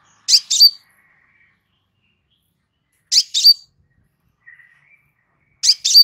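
Crimson sunbird (kolibri sepah raja) calling three times, about two and a half seconds apart. Each call is a quick pair of sharp, high chips ending in a brief ringing note.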